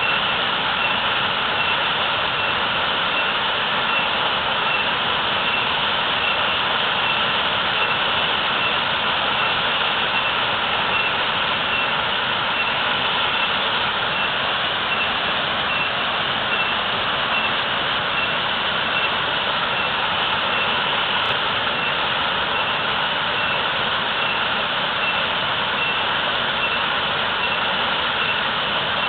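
Natural waterfall with a heavy, fast flow, its water falling and rushing in a steady, unbroken roar.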